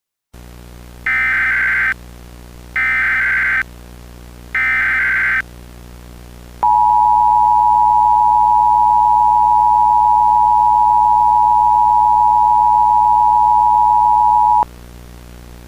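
Emergency Alert System SAME header: three short bursts of digital data tones, about a second each, then the EAS two-tone attention signal (853 and 960 Hz) held steady for about eight seconds and cutting off abruptly. A faint steady hum lies underneath.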